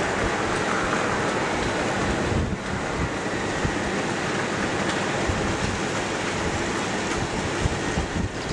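Tri-ang model Class 8P 'Princess' steam locomotive running along the track, a steady noisy rumble of its motor and wheels on the rails with a few small clicks.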